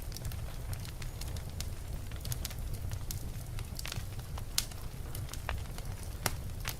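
Wood fire burning in a fireplace: a steady low rumble of flames with irregular sharp crackles and pops, one louder pop about two-thirds of the way through.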